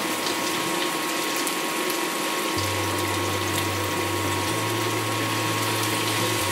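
Chicken, onion and garlic sizzling in a hot frying pan as soy sauce is poured in. A low steady hum comes in about two and a half seconds in.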